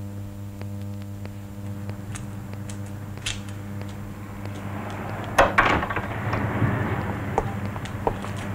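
A steady low electrical hum, with a few sharp clicks and, from about five seconds in, a rustling noise.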